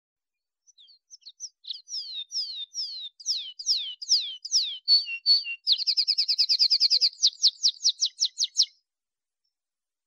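Male canary (Serinus canaria) singing. It gives a series of downward-slurred whistled notes about two a second, then breaks into a rapid high trill about halfway through. The trill gives way to a quicker run of slurred notes, and the song stops a little before the end.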